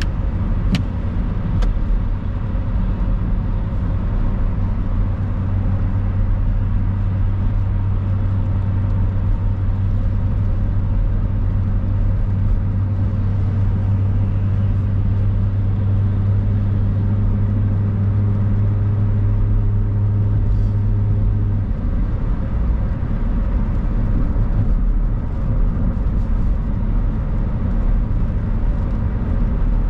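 Steady road noise inside a moving car's cabin: a low rumble of engine and tyres on a wet road. A low hum runs along under it and stops about 21 seconds in, and two sharp clicks sound near the start.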